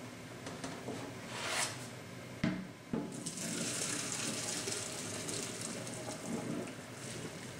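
Two sharp knocks of a steel pot against the sink, then hot cooking water and diced boiled vegetables pouring out of the pot into a plastic colander in a stainless steel sink, a steady gushing hiss as the vegetables are drained.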